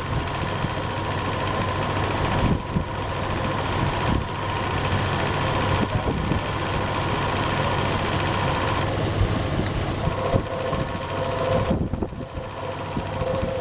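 Vehicle engine running steadily: a low hum under a haze of noise, with a faint steady whine higher up.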